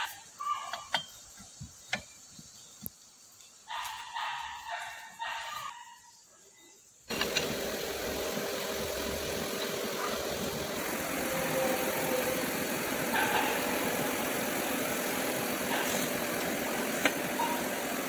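Sharp metal clicks and taps as a gear is worked off a steel shaft clamped in a vise. About seven seconds in, the sound switches suddenly to a loud, steady machine noise.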